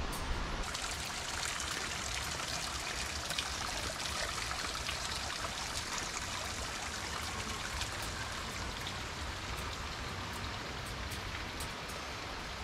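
Steady rush of running water, with scattered faint crackles.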